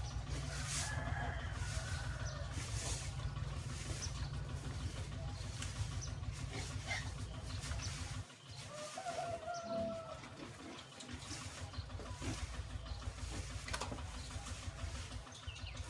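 Faint bird calls over a steady low rumble that stops suddenly about eight seconds in.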